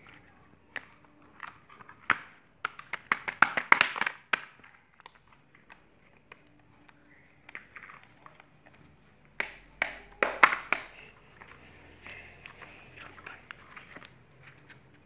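Glitter slime squeezed and kneaded by hand, giving wet clicking and popping. The clicks come in two dense runs, a few seconds in and again about two-thirds of the way through, with softer squishes between.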